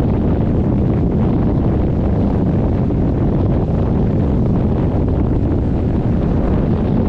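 Strong sea wind buffeting the microphone: a loud, steady low rumble with no break.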